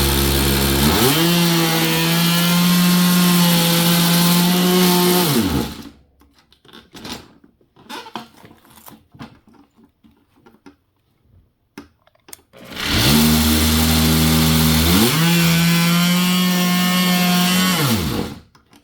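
Corded oscillating multi-tool (Warrior 2 Amp variable-speed) cutting in two runs of about five seconds each. Each time the motor speeds up to a steady whine and then winds down when switched off. Faint knocks and handling sounds fill the pause between the runs.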